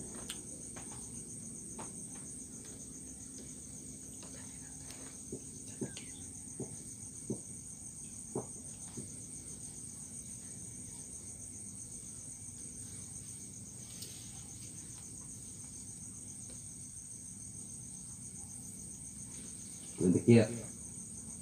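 Crickets chirping steadily, a continuous high-pitched trill, with a few faint scattered taps. A man's voice speaks briefly near the end.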